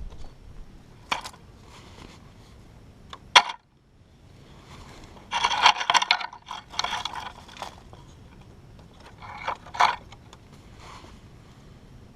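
Scraping and rustling handling noises with several sharp clicks, the loudest click about three and a half seconds in, and a longer burst of rustling scrapes in the middle.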